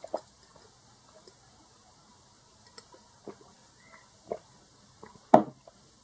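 A few soft gulps of water being swallowed, then a louder knock near the end as a drinking glass is set down on the table.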